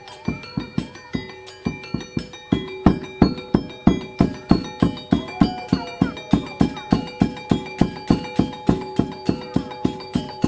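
Rhythmic music: a steady beat of about three strikes a second under held, ringing tones of tuned percussion, getting louder about two and a half seconds in.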